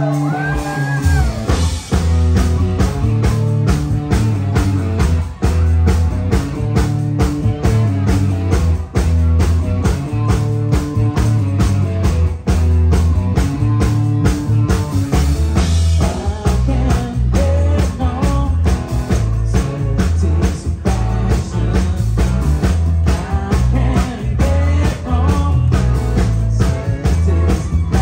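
Live rock band playing amplified at full volume: drum kit keeping a steady beat under a heavy bass line and electric guitar, with a singer's voice coming in at moments.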